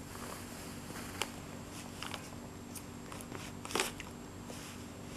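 A baby handling a plastic drink bottle on bedding: faint, scattered crinkles and clicks, the loudest a little before four seconds in.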